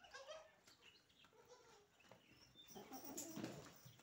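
Faint, short bleats of goat kids, with a brief rustle and some high chirps about three seconds in.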